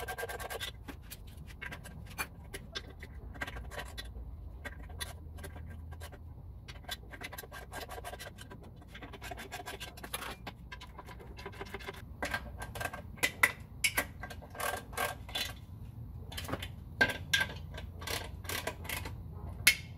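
Ratchet wrench clicking in short, irregular runs as the bolts holding an outboard's lower unit are tightened, the clicks coming more often in the second half.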